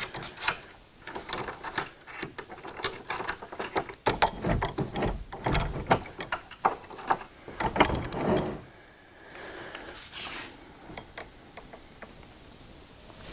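Irwin swivel bench vise being unlocked and turned on its base: a rapid run of metal clicks and rattles from the turning head and its lock handles, which thin out about nine seconds in.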